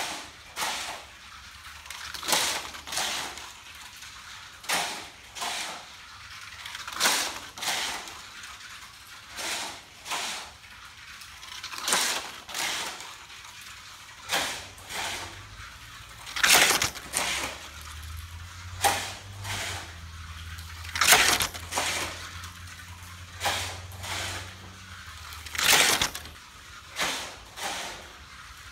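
Hot Wheels Sizzlers battery-powered toy car lapping a long plastic Fat Track loop at full speed, its small motor whining and the car whooshing past in quick double passes that repeat just over every two seconds, about a dozen laps in all.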